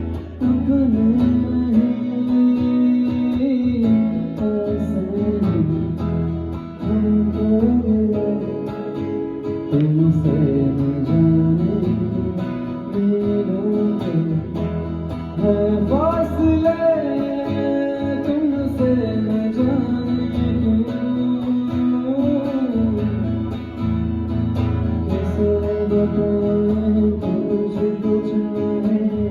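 Amplified live music: guitar with a sung melody over a steady bass, at an even, loud level.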